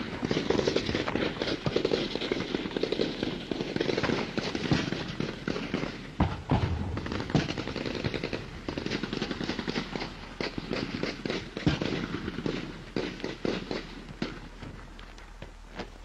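Dense crackle of small-arms gunfire with occasional louder bangs, thinning out toward the end.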